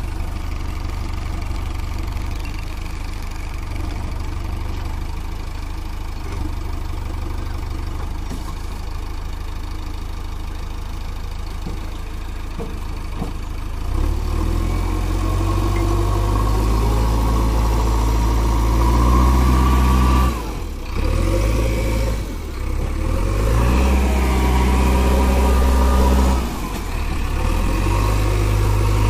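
JCB 3DX backhoe loader's diesel engine idling steadily, then from about halfway it revs up louder as the backhoe arm is worked. The revs rise and fall several times, with brief drops in between.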